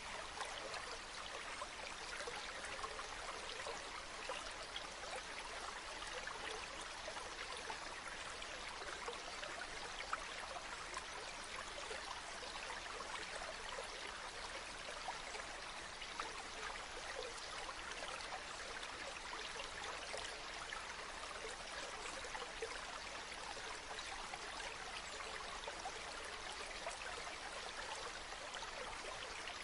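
Waterfall: a steady rush of falling and splashing water, with little deep rumble.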